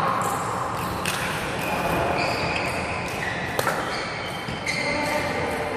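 Badminton rally: sharp racket hits on the shuttlecock, about a second in and a louder one about three and a half seconds in, with short high squeaks of shoes on the wooden court, echoing in the large hall.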